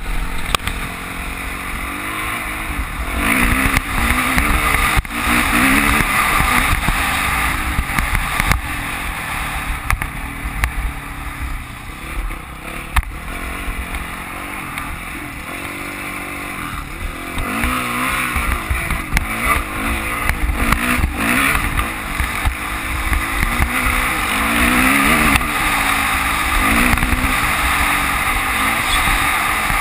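Dirt bike engine under way, its pitch climbing and dropping again and again as the rider rolls on and off the throttle, with wind rumbling on the microphone.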